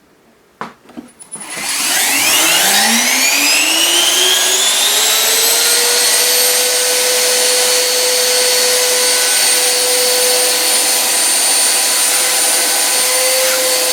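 Home-built vacuum cleaner made from three vacuum cleaner motors being switched on. After a couple of clicks, the motors spin up with a rising whine over about four seconds, then run loud and steady at full speed.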